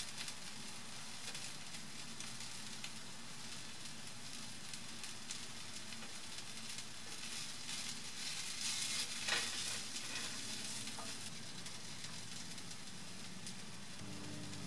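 Sliced red onions sizzling and crackling in hot coconut oil in a frying pan, nearly done and browning toward crisp. A wooden spatula stirs and scrapes through them, loudest about eight to ten seconds in.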